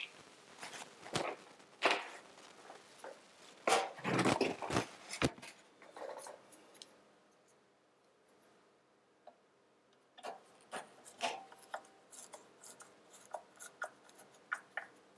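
Screws being driven with a hand screwdriver into a fan and metal miner case: irregular clicks, scrapes and knocks, pausing for about three seconds in the middle before scattered clicking starts again.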